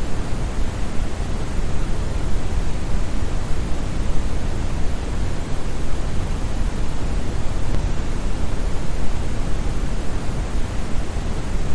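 Steady brown noise: an even, deep rushing hiss with most of its weight in the bass and little treble, unchanging throughout.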